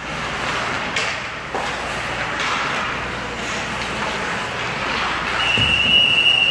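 Indoor ice hockey play: a steady echoing wash of skate and rink noise with sharp stick-and-puck clacks about a second in and again half a second later. Near the end comes a single steady high whistle blast, held for about a second and a half.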